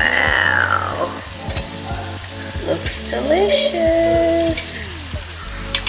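Hot air-fried salmon sizzling in the just-opened air fryer basket, with small scrapes and taps as the pieces are handled.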